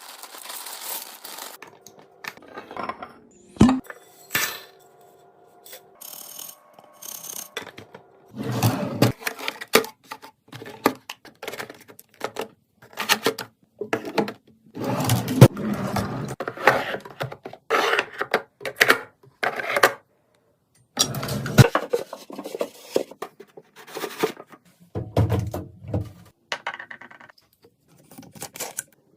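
Containers, jars and packaged food being handled and set down during restocking: a string of clicks, knocks and clinks with rustling, broken by short silent gaps.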